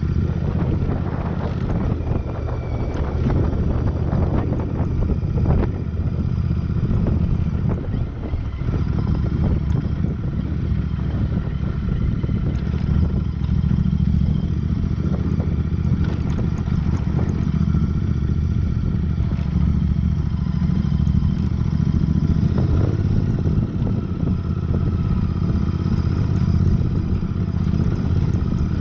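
Royal Enfield Interceptor 650's parallel-twin engine running steadily while being ridden on a dirt trail, with frequent short knocks and rattles from the bike jolting over the rough track.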